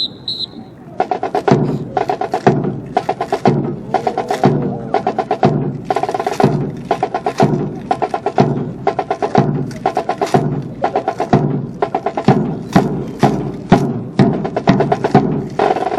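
Marching percussion section playing a rhythmic drum cadence of sharp, crisp strikes, starting about a second in.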